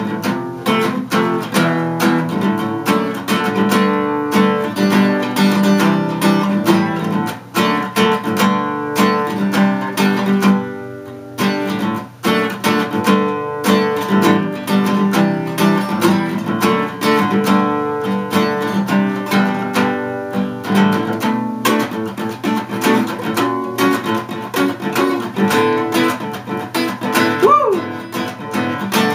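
Solo cutaway acoustic guitar strummed and picked in a steady instrumental chord pattern, with a couple of short breaks near the middle.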